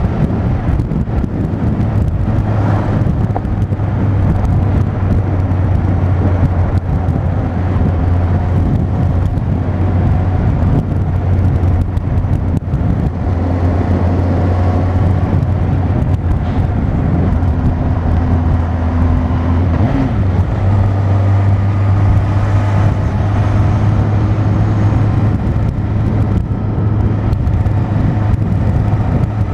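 Motorcycle engine running at a steady cruise under wind and road noise, recorded from the moving bike. The engine note breaks briefly about two-thirds of the way through, then settles again.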